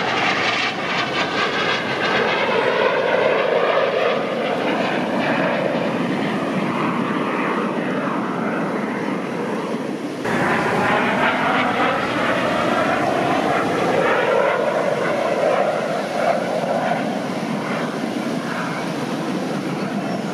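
Jet aircraft flying past overhead, a loud rushing engine noise that swells and sweeps in pitch. It breaks off abruptly about halfway through and starts again with another pass.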